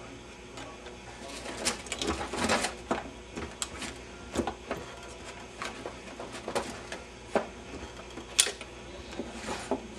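A punched stiff-paper card is worked into the card slot of a card-type vacuum-tube tester, making irregular scraping rustles and short sharp clicks as it is pushed and seated. The slot is tight, so the card goes in with several separate clicks.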